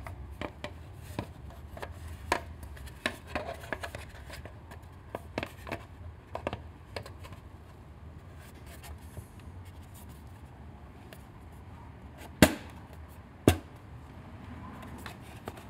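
Plastic side cover of a Triumph Street Twin being handled and pressed on: scattered light taps and scrapes of plastic, then two sharp clicks about a second apart near the end as its pegs are pushed into the rubber grommets.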